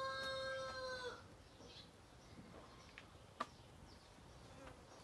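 The end of a rooster's crow: one long held call that breaks off about a second in. Then a faint background with a few light clicks.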